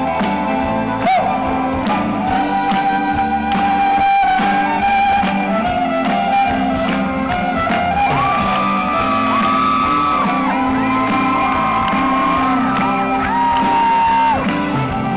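Live Celtic rock band playing loudly: fiddles, acoustic and electric guitars, hand drum and keyboard, with voices shouting and singing along. In the second half the melody moves to long held notes that slide from one pitch to the next.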